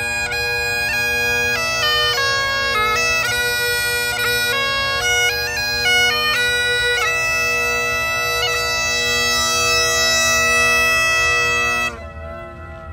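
Scottish Great Highland bagpipe playing a tune on the chanter over its steady bass and tenor drones, as a tuning test of the drones against the chanter. The melody moves through several notes, settles on one long held note, and the pipes stop about a second before the end.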